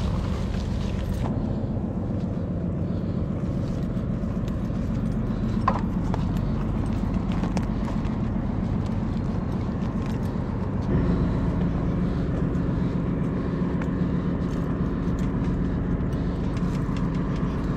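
Electric bike ridden along a dry dirt trail: a steady motor hum with the tyres crackling over the ground and small sticks, the hum getting a little louder about eleven seconds in.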